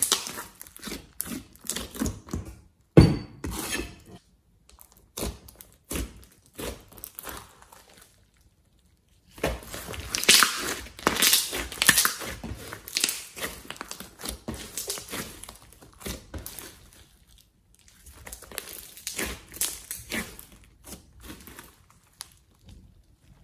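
Hands squishing, pressing and stretching a large lump of glossy slime: sticky squelching with quick runs of small clicks and pops. One louder thump comes about three seconds in, and the handling stops for about a second near the middle.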